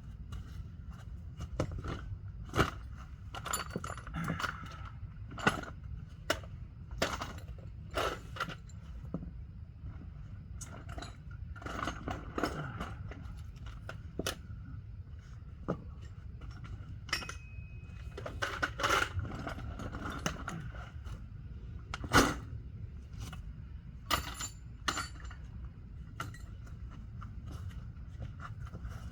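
Irregular metallic clinks, knocks and scrapes of tools and metal parts while a CV axle is worked out of a car. One sharp knock about two thirds of the way through is the loudest. A steady low hum runs underneath.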